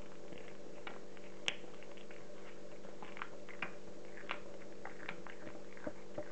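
Cat chewing and tearing at raw chicken: a run of irregular wet clicks and crunches from its teeth and the meat, the sharpest about a second and a half in.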